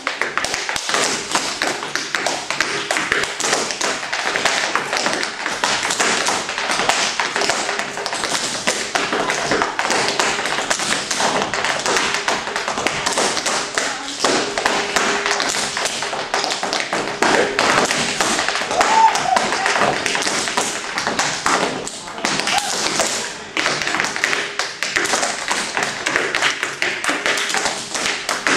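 A cappella tap dancing with no music: two dancers' tap shoes striking a wooden tap board in rapid, dense rhythms of clicks and heavier heel thumps.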